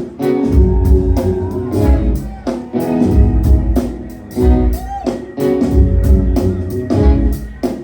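Live band playing the opening bars of a song: a steady drum beat over bass and guitar.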